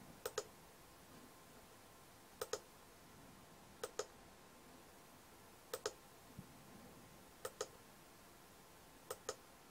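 Computer mouse button clicking: six press-and-release double clicks, spaced a second or two apart.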